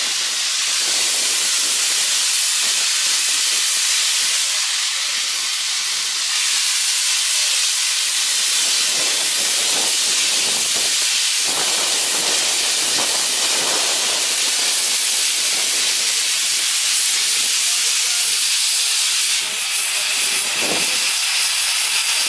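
Steam venting from a steam engine with a steady, loud hiss.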